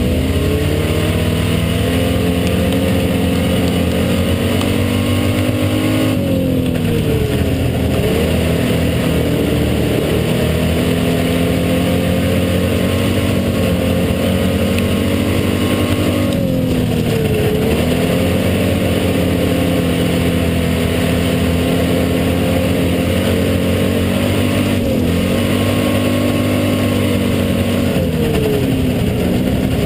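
Hobby stock race car's engine heard from inside the cockpit, running hard at high revs. The pitch drops and climbs back four times as the driver lifts for the corners and gets back on the throttle.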